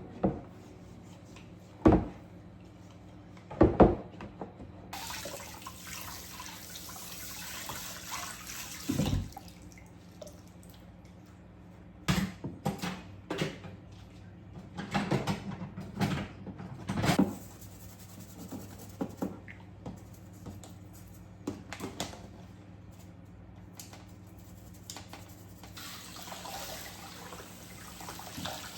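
Kitchen tap running into a sink, turned on about five seconds in and off a few seconds later, then on again near the end, with scattered knocks and clinks of kitchenware being handled in between, over a steady low hum.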